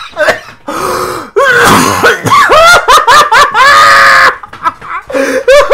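A person laughing hard: a gasping breath, then a quick run of loud, high-pitched ha-ha bursts, and another short burst of laughter near the end.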